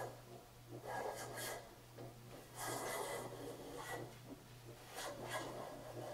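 Hand plane shaving split bamboo (cane) strips held in a steel planing form: several short, scraping push strokes, one after another, each about half a second to a second long.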